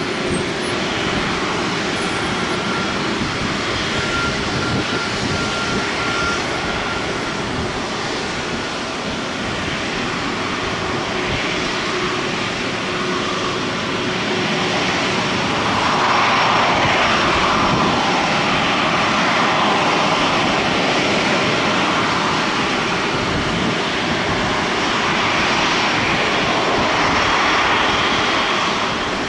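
Airbus A350's Rolls-Royce Trent XWB jet engines running at taxi power, a steady jet noise that grows louder about halfway through.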